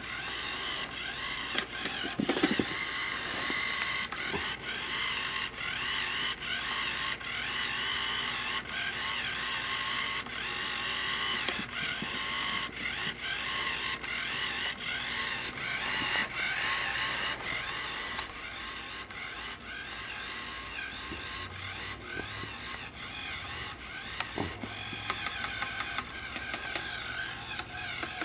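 Motorized spinning cat toy running, its electric motor and gears whirring and clattering steadily as the wire wand swings the ball around. Near the end, a run of sharp, evenly spaced clicks.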